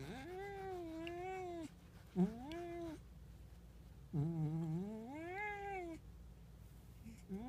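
Domestic tabby cat yowling: three long, drawn-out, wavering calls, with a fourth starting near the end.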